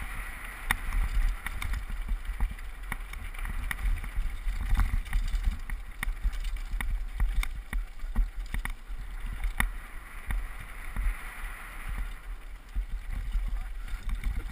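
Downhill mountain bike clattering over a rocky, gravelly trail: frequent sharp clicks and rattles at irregular intervals, over a steady low wind rumble on the GoPro's microphone.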